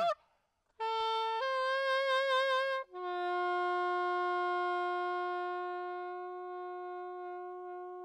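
Solo saxophone playing. After a brief pause it plays a note that steps up to a higher, wavering one, then holds a long, steady lower note that slowly fades.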